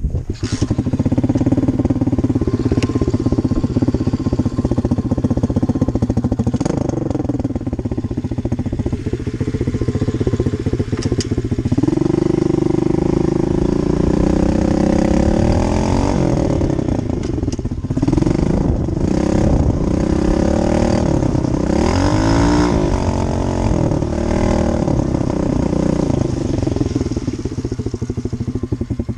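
SSR dirt bike engine catching and running, starting abruptly at the very beginning. It runs steadily for a while, then is revved up and down again and again, the pitch rising and falling, before settling.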